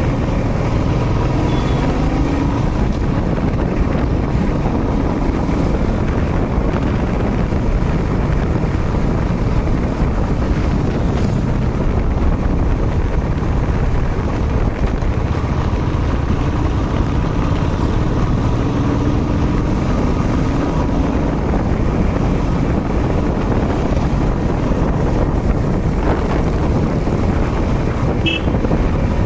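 Riding motorcycle: wind buffeting the microphone at riding speed, with the bike's engine running steadily underneath.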